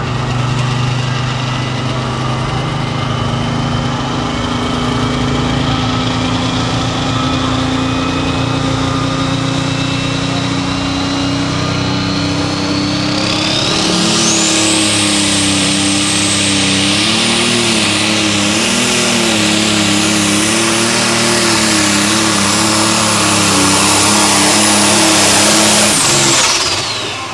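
Pro Stock pulling tractor's turbocharged diesel engine, Minneapolis-Moline bodied, held at high revs with a turbo whine that slowly rises. About halfway through the whine climbs sharply to a high, steady scream while the engine note wavers under full power. The sound falls away sharply shortly before the end.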